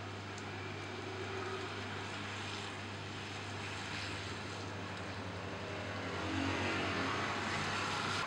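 Traffic on a wet street: a car's tyres hiss on the wet road over a steady low engine hum, which grows louder over the last two seconds.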